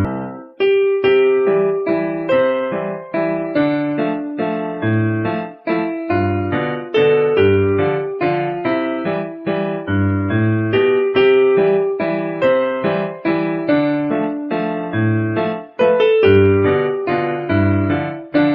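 Background music: a piano-like electric keyboard playing a steady stream of melody notes over bass notes.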